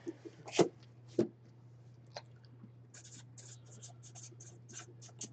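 Faint light taps, then a quick run of short scratchy strokes like something rubbing or writing on a surface, over a steady low hum.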